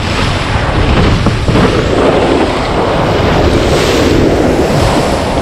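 Whitewater rushing and spraying around a surf kayak's hull as it rides a breaking wave, with heavy wind buffeting on the microphone. The noise is loud and steady throughout.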